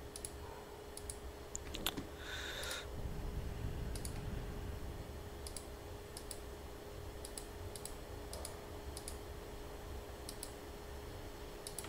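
Computer mouse clicking: a dozen or so sharp, irregularly spaced clicks over a faint steady hum.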